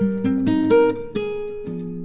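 Background music: plucked acoustic guitar playing a melody, notes picked one after another and left to ring.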